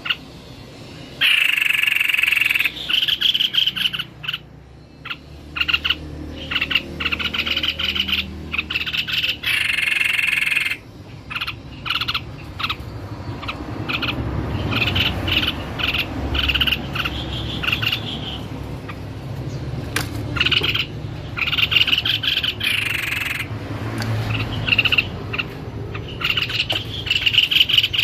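White-bibbed babbler (tepus leher putih) singing actively, in repeated bursts of quick, chattering high notes with short pauses between phrases.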